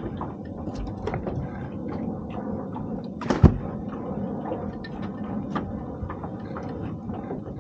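Small clicks and handling knocks from fishing gear and the boat, with one sharp, loud knock about three and a half seconds in, over a steady low background rumble.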